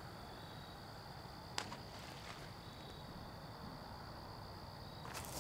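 Faint, steady high-pitched trilling of night insects, with one sharp click about a second and a half in and a few softer clicks near the end.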